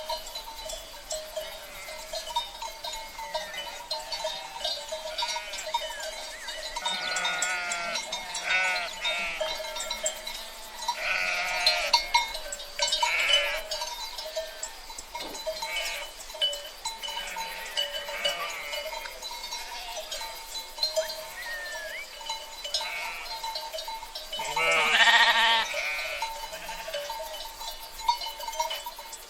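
A flock of sheep bleating: several wavering bleats come in clusters, the loudest and longest near the end. A steady ringing hum runs underneath.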